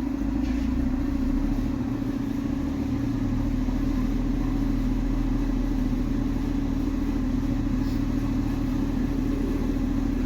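Maruti Suzuki Swift Dzire engine idling steadily, a low even hum that shifts slightly about three seconds in.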